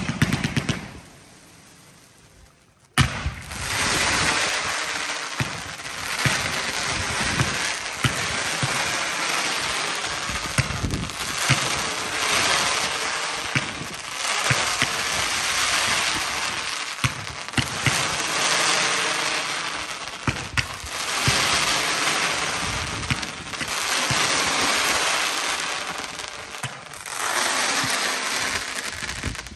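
Fireworks going off: a sharp bang at the start, then from about three seconds in a continuous dense crackling hiss full of sharp pops, swelling and easing in waves every few seconds, that stops just before the end.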